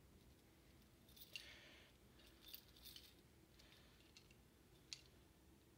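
Faint scattered clicks and short rattles from a combination padlock on a school locker being handled while its worn numbers are read, a few small clicks about a second and a half in, around three seconds, and once near the end.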